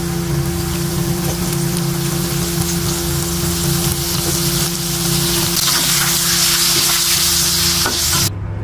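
Battered mushrooms deep-frying in hot oil in a wok: a dense, steady sizzle with scattered small pops and a steady low hum underneath. It cuts off abruptly near the end.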